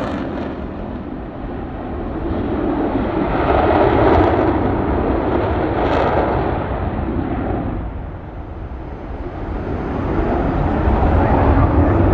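F-16 fighter jet engine in afterburner during a display pass: a loud, continuous rushing jet noise that swells and fades as the aircraft manoeuvres. It dips about eight seconds in and builds again near the end.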